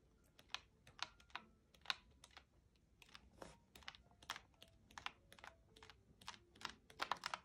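Sheets of a pad of patterned scrapbook paper being flipped one after another with the thumb, each page flicking off with a light, sharp tick. The ticks come a few a second, with a quick run near the end.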